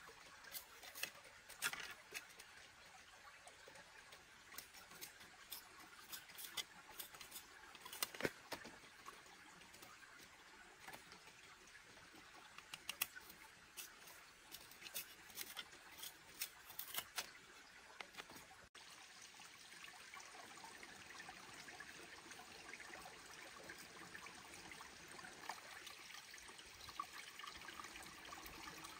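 Cleaver blade splitting and scraping thin bamboo strips: a scattered run of small clicks and scrapes over a faint trickle of stream water. About two-thirds through the sound changes abruptly to a steadier stream trickle with a few light clicks of bamboo strips being handled.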